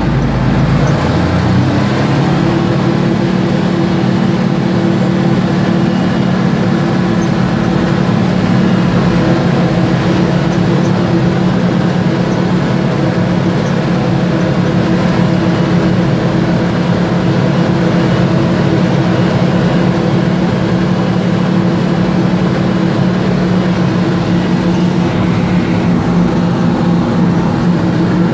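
Twin Detroit Diesel 12V-71T two-stroke diesel engines of a Wabco 333FT motor scraper running hard, heard from inside the cab. The engine note climbs about two seconds in and then holds a loud, steady drone.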